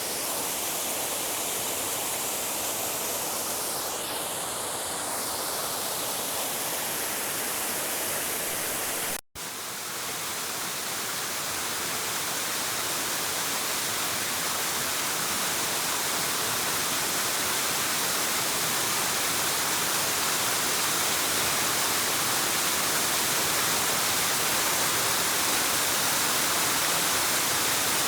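Waterfall: a steady, even rush of falling water, broken once by a momentary dropout about nine seconds in, after which it carries on.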